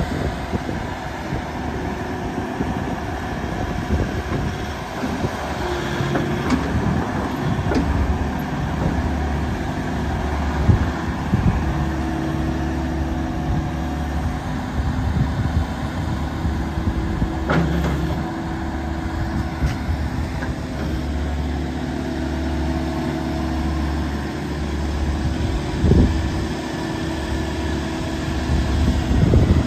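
Volvo ECR88D compact excavator's diesel engine running while its hydraulics work the boom and swing the upper structure: a steady low hum with a whine that comes and goes, and a few sharp clunks.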